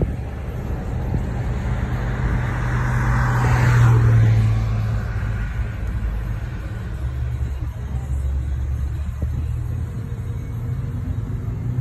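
A Jeep engine runs steadily at low road speed with a low drone, under wind and tyre noise. A swell of louder noise rises and falls about four seconds in.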